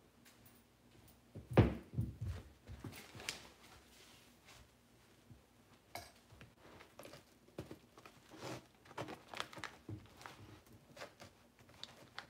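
A single thump about one and a half seconds in, then scattered light knocks, clicks and rustles as a carpet seam iron and its cord are handled and set down on the carpet.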